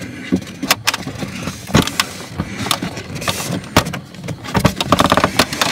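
Scraping, rustling and several sharp plastic knocks as a new pleated cabin air filter is pushed up into its housing under the dashboard.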